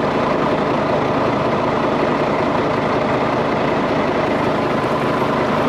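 Scania Next Generation truck's diesel engine idling steadily, heard from inside the cab.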